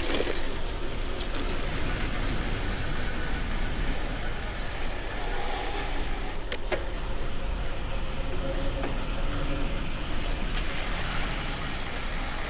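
Steady wind rush on the microphone and the rolling hum of a vintage steel bicycle's tyres on smooth new tarmac while riding. A few short sharp clicks come through along the way.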